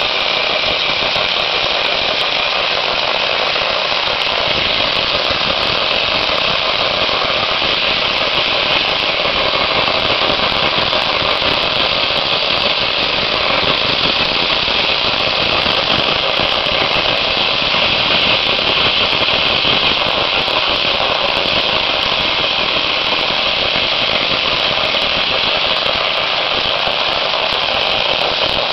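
Dry ice blasting gun firing continuously: a loud, steady blast of compressed air and dry ice pellets stripping built-up paint from a cast iron railing piece.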